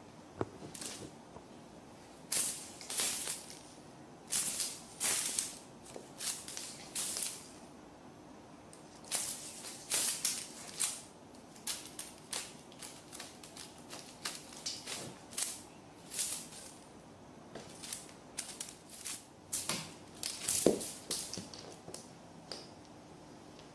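Irregular bursts of rustling and scratching from a cat at play, about twenty short scuffles of under a second each with brief pauses between them; the loudest comes near the end.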